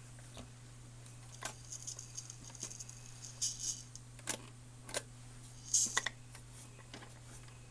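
1967 Magnavox record changer cycling through a stack of 45s on reject: scattered clicks and clatter from the changer mechanism over a steady low hum from the running motor.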